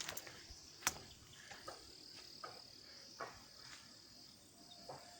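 Steady high-pitched insect chirring, with scattered soft rustles and ticks and one sharp click about a second in.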